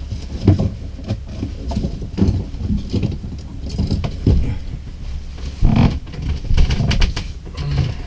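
Rummaging through a locker for a tape measure: irregular knocks and clatter of objects being shifted and handled, with a sharper knock about half a second in and a louder one near six seconds.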